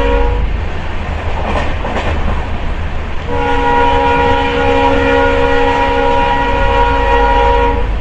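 Multi-tone train horn with the steady rumble of a moving passenger train beneath it: one blast cuts off about half a second in, and a second long blast sounds from about three seconds in until just before the end.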